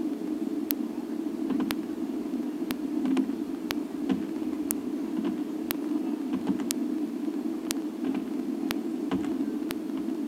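A steady low hum and hiss, with a sharp tick about once a second and a few fainter, irregular pops in between.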